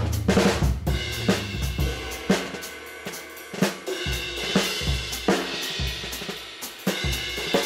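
Background music: a steady drum-kit beat with hi-hat, cymbals and snare over a deep bass line, the bass dropping out for a moment in the middle.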